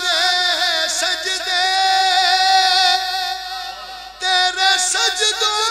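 A man singing a devotional recitation in long, held notes that waver and bend in pitch, with a short break about four seconds in.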